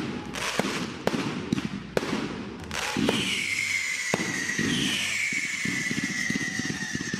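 Fireworks: a rapid string of sharp cracks, then a whistling tone that slides down in pitch and holds, a second whistle joining about five seconds in.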